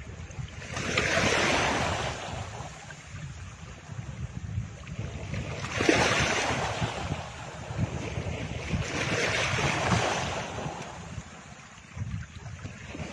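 Rushing, surf-like noise from the background sound track, swelling and fading three times about four seconds apart.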